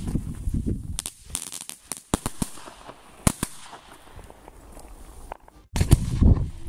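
Fireworks going off: a rushing burn in the first second, then scattered sharp crackling pops for several seconds. Near the end comes a loud rumbling whoosh as a firework shoots up from the ground.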